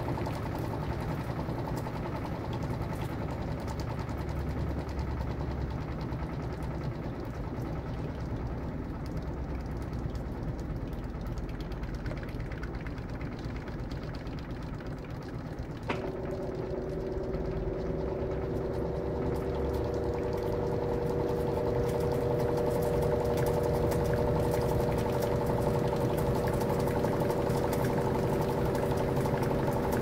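Electrolux LM13Q top-load washing machine with its basket spinning, a steady mechanical run. About halfway through there is a click, then a steady higher hum joins in and the sound grows a little louder.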